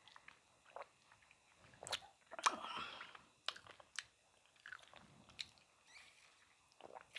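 Close-miked mouth sounds of a person sipping soda through a straw from a nearly empty cup and swallowing, with scattered small wet clicks and a louder slurping burst about two and a half seconds in.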